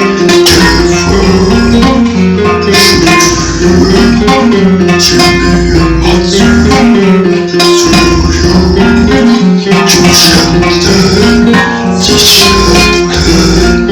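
Dark folk music: plucked strings over sustained low droning tones, with a noisy percussive accent about every two and a half seconds.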